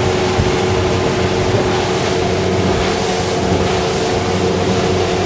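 Outboard engine of a Blackjack 256 bay boat running steadily at cruise, about 3,400 rpm at around 31 mph. Its steady drone sits under the rush of water along the hull and wind.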